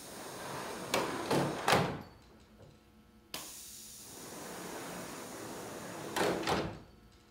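Double-acting pneumatic air cylinders driving solar panels out on stainless steel drawer slides, first one side and then the other, about three seconds apart. Each stroke starts suddenly with a rush of air and ends in a few sliding knocks and clunks as the panel runs out.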